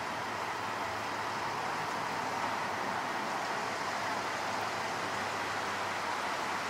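Steady engine and road noise from a Ford Super Duty ambulance creeping forward out of a fire station bay, an even hiss with a faint low hum and no siren.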